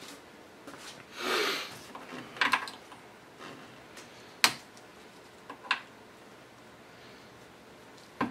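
Sparse light clicks and scrapes of a thin screwdriver prying at a small plastic cover over a nut, with a soft swish about a second in and the sharpest click about four and a half seconds in.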